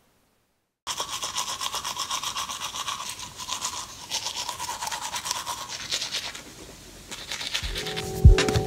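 Teeth being brushed: fast, even scrubbing strokes of a toothbrush, starting about a second in and fading out after about six seconds. Music comes in near the end.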